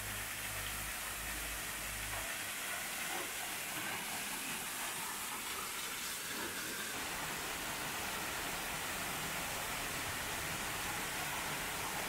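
Steady hiss of a small waterfall pouring into a stream pool, with no breaks. A low rumble underneath stops about two seconds in.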